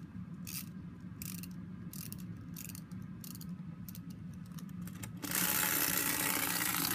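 Clockwork wind-up toy sheep being wound, its winding ratchet clicking about every half second over a low steady hum. About five seconds in, a louder steady noise takes over.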